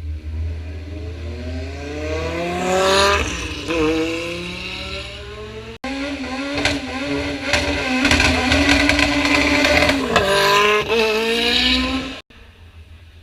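Rally car engine accelerating hard, its pitch climbing with a gear change about three seconds in. After a sudden cut near the middle, an engine holds steady high revs with rapid crackling, then climbs again before another sudden cut near the end.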